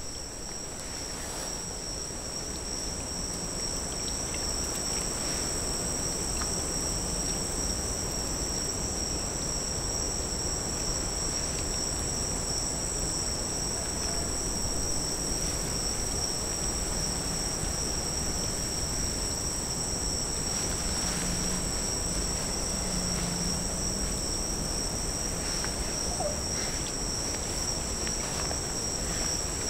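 Insects trilling steadily in a wet swamp at dusk: two continuous high-pitched tones, one above the other, over a faint low background hiss.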